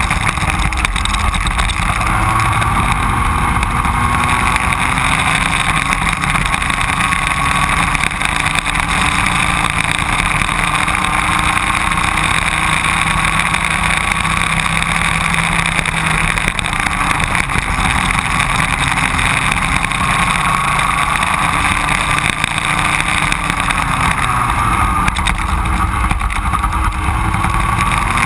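Onboard sound of a racing go-kart's engine running at speed, its pitch rising and falling slowly as it accelerates out of and slows into corners, over a steady low rumble.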